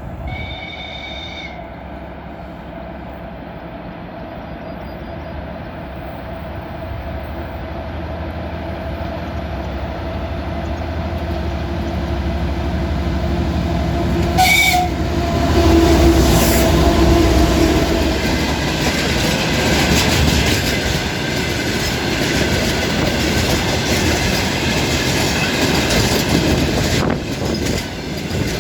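2TE10UK twin-section diesel locomotive approaching and passing with a 62-car train of tank cars. It gives a short two-tone horn blast near the start, its diesel engines grow louder to a peak about halfway, and another brief horn blast sounds as it passes. Then the tank cars roll by with a steady clickety-clack of wheels over the rail joints.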